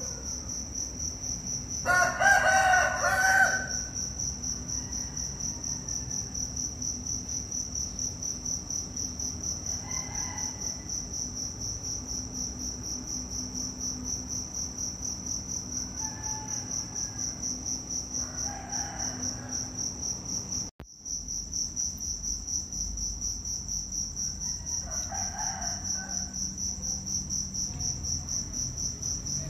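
A chirping insect keeps up a steady, high-pitched pulsing trill throughout. About two seconds in a chicken gives a loud call lasting a second or so, and fainter chicken calls follow now and then.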